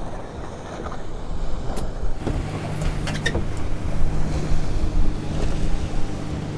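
Small boat's outboard motor running at idle, a low steady hum that firms up about two seconds in, with wind buffeting the microphone and a few light clicks.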